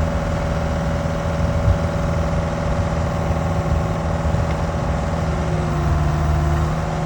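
Excavator engine running steadily, with no hammer strikes yet.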